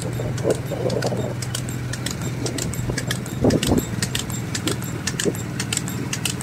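A single bull trotting on a paved road, pulling a light two-wheeled racing cart: quick, irregular clicking and jingling from the hooves, harness and cart fittings over a steady low hum of the rolling cart.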